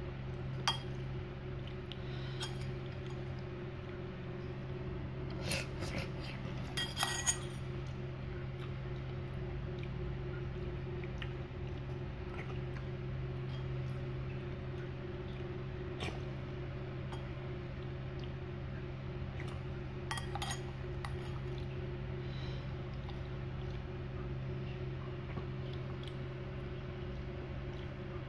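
Metal spoon and fork clinking and scraping against a ceramic bowl while eating from it: scattered single clinks, a quick cluster about six to seven seconds in and another around twenty seconds. A steady low hum runs underneath.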